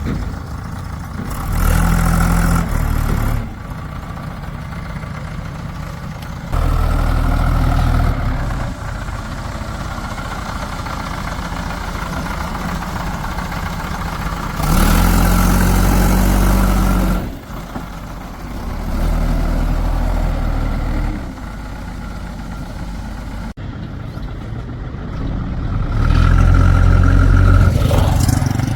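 Diesel engine of a JCB 3DX backhoe loader at work, idling and then revving up under load for a few seconds at a time, about five times, before dropping back.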